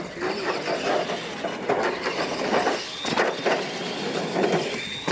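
Radio-controlled monster trucks racing side by side over dirt: small electric motors whining and big tyres scrabbling on the dirt, with a couple of sharp knocks as the trucks bounce over the jumps.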